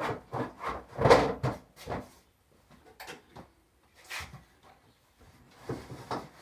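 Plastic fodder trays and their lids knocking and scraping against each other and the wooden shelving as they are worked loose and handled, a string of irregular clacks with the loudest about a second in.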